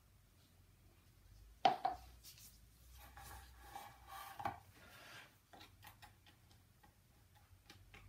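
A sharp knock about a second and a half in, then scraping and a run of light ticks: a wooden chopstick working a nut-and-seed mix into a metal heart-shaped mould tray.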